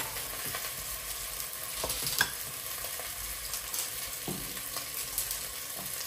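Kitchen sounds at a stovetop saucepan: a steady hiss with a few light clicks and knocks as food in the pot is handled and stirred.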